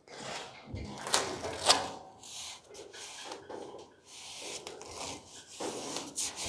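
Masking tape being laid along a bare sheet-metal body panel and rubbed down with gloved hands: a series of short scratchy rubbing strokes, with two sharper ones about a second in and just before two seconds.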